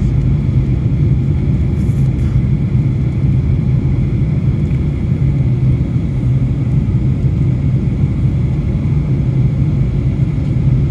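Steady cabin noise of a Boeing 737 in flight, heard from inside the cabin: a constant low rumble of engines and airflow with a faint steady hum above it.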